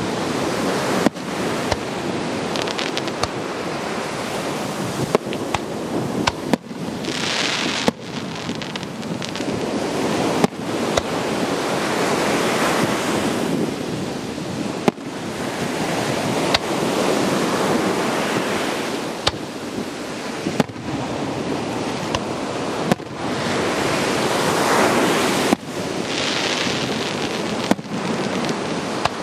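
Aerial firework shells bursting, a sharp bang every one to few seconds, about a dozen in all, over a continuous rushing rumble.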